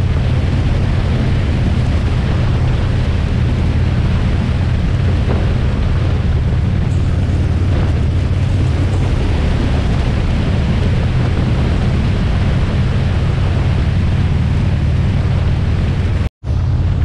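Steady wind rush and low rumble on the microphone of a motorcycle riding at cruising speed. The sound drops out completely for a moment near the end, then resumes.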